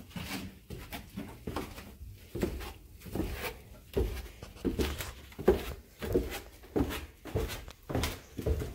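Footsteps going down bare wooden stairs, a dull knock about twice a second.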